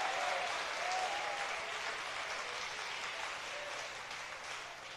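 Church congregation applauding, the clapping slowly fading away, with a few faint voices calling out among it.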